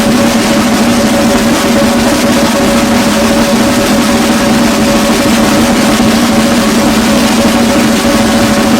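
Military pipe band playing: bagpipes with steady droning tones held throughout, over snare and bass drums.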